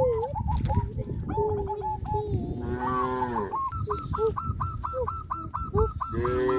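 Cow mooing: one long call about three seconds in and another near the end. Between them, a fast run of short repeated calls from farm fowl, about three a second.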